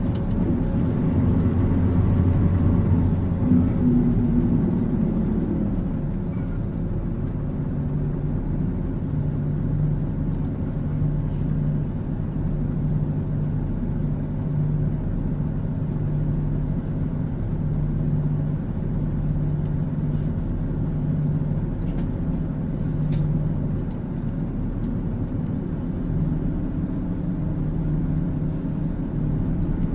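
Mitsubishi Fuso Aero Star (PKG-MP35UP) city bus heard from inside the cabin, its diesel engine running. The engine note shifts in pitch for the first few seconds, then settles into a steady low drone.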